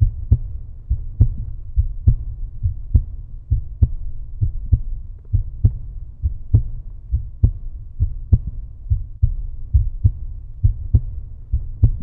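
End-card music: a low, heartbeat-like pulsing beat, with a strong thump about once a second and lighter thumps between.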